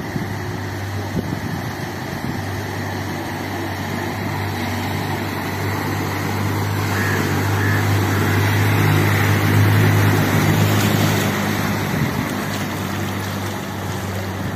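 Suzuki Alto hatchback driving through deep floodwater: a steady engine hum under the rush of water pushed aside by its wheels. It grows louder as the car comes close, loudest around ten seconds in, then eases as it moves away.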